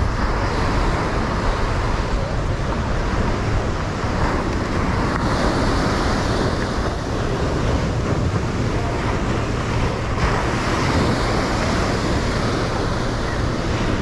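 Steady outdoor ambience of road traffic mixed with breaking surf, with wind rumbling on the microphone.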